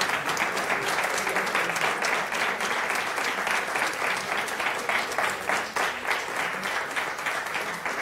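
Audience applauding steadily, easing off slightly near the end.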